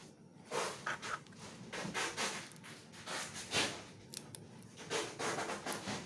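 Irregular rubbing and scraping handling noises from laptop parts being worked on by hand, a series of short scrapes with a few sharper ones.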